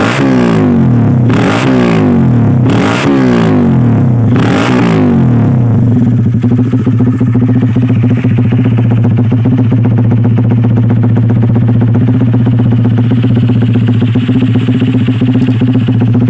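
Honda Sonic motorcycle engine running through a Fanterra Jigsaw aftermarket exhaust with a half-packed silencer. The throttle is blipped three quick times over the first few seconds, then the engine settles into a steady idle.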